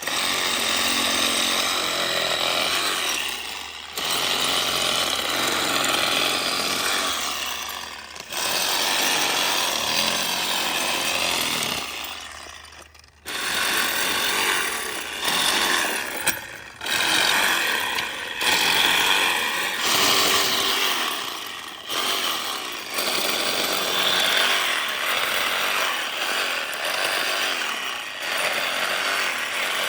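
Cordless DeWalt reciprocating saw with a Diablo pruning blade sawing through wood. It runs in loud stretches whose pitch rises and falls with the trigger and the load, and it stops briefly about half a dozen times between cuts.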